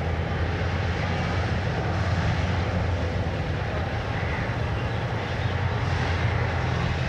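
Steady low engine drone with an even hiss above it, swelling slightly now and then.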